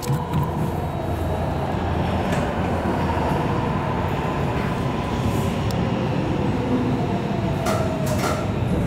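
MARTA rapid-transit railcar heard from inside as it slows into a station: a steady rumble of wheels and running gear, with a motor whine that falls slowly in pitch as the train loses speed. A couple of sharp clicks sound near the end.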